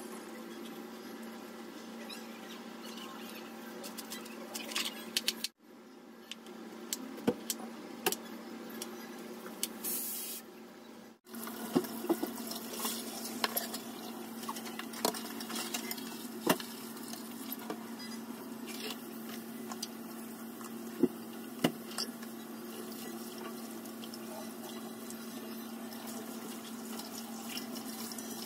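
Tap water running into a stainless steel sink while dishes are rinsed, with crockery clinking now and then, over a steady low hum.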